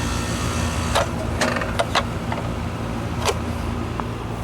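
4-ton Goodman condenser's compressor running with a steady hum while the condenser fan stays still, a sign of the fan's failed run capacitor. A few sharp clicks come over the hum in the first half and once more past the middle.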